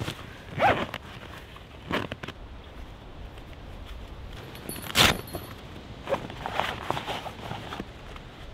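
Heavy canvas of a swag tent being handled as the door flap is rolled up and tied back, with scattered rustles and dry leaves crunching under the knees. A single sharp click about five seconds in is the loudest sound.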